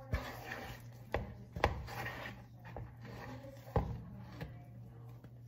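Wooden spoon stirring a thick, wet bread dough in a bowl: squelching and scraping, with irregular sharp knocks as the spoon strikes the bowl, about six times.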